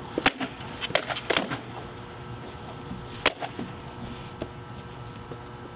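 Sparring weapons striking shields and armour during a mock combat bout: a quick run of sharp smacks in the first second and a half, then a single smack a little after three seconds.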